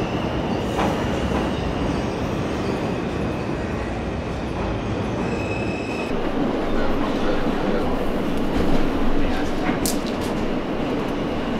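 New York City subway train (J line) entering an underground station: a steady rumble of steel wheels on the rails with a thin high wheel squeal. Partway through it changes to the running noise of a moving subway car heard from inside, with a sharp click near the end.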